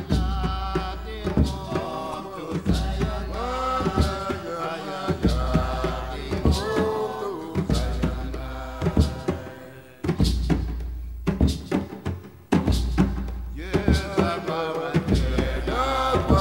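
Background music: a chanted song with a singing voice over hand drums, and a deep bass note that sounds about every two and a half seconds.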